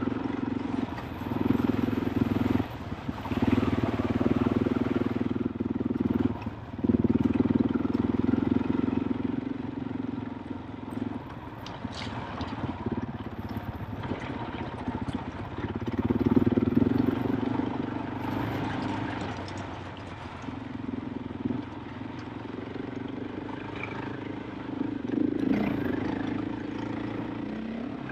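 KTM 500 EXC-F enduro motorcycle's single-cylinder four-stroke engine running on a trail ride. Its note swells and falls back several times, with a few brief dips and some scattered clicks.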